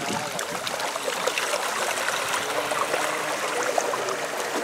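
Water trickling and splashing as a radio-controlled model ship churns through choppy lake water close to a wooden jetty. It is a steady wash of small splashes with no wind rumble.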